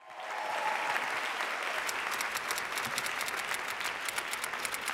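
Live audience applause, fading in at the start and holding steady, with many individual claps.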